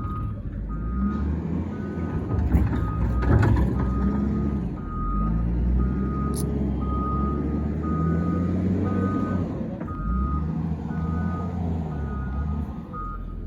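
Heavy construction machine's backup alarm beeping at a steady rate, about one and a half beeps a second, over its engine running. A few clanks are heard about three seconds in.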